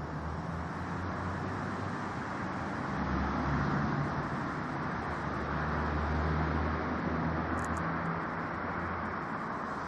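Steady hum of road traffic, swelling twice as vehicles pass.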